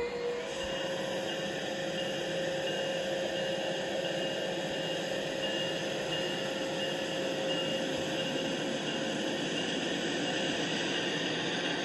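Battery-powered LEGO train's small electric motor and gears running steadily, heard close up from on board: a continuous hum with a thin high whine above it that settles in about half a second in.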